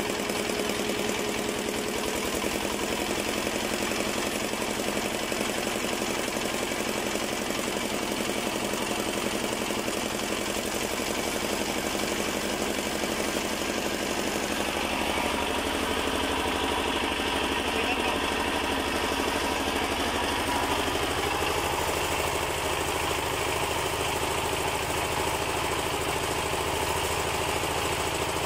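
Diesel engine of a generator set running steadily, with a slight change in its tone about two-thirds of the way through.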